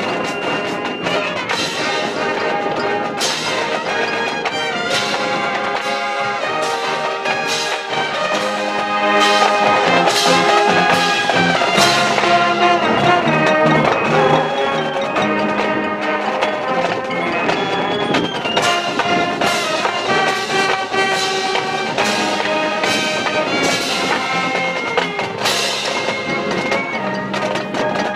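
High school marching band playing: brass chords over percussion strikes, with front-ensemble mallet instruments. The music grows louder about nine seconds in, then eases back a few seconds later.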